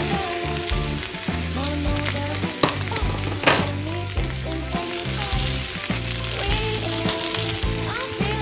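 Beef slices sizzling in hot oil as they are tipped into a non-stick pan with garlic and scallion whites and stirred with a silicone spatula, with a brief louder scrape about three and a half seconds in. Background music plays underneath.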